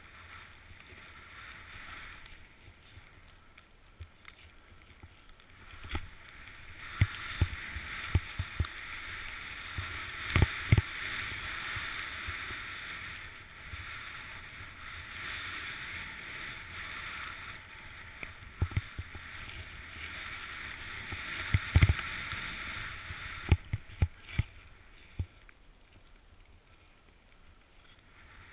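Snowboard sliding through deep powder snow: a steady swishing hiss that swells about six seconds in and eases off near the end, broken by several sharp thumps.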